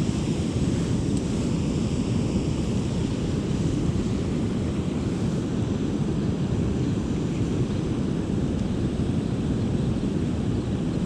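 Steady, even low rush of river water pouring over a dam.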